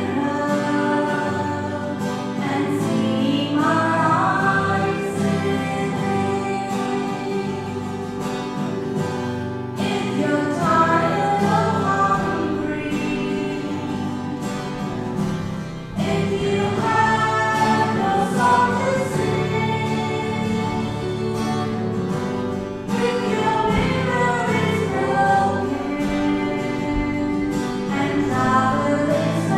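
A hymn sung by a choir over sustained instrumental accompaniment, in phrases with short breaks between them.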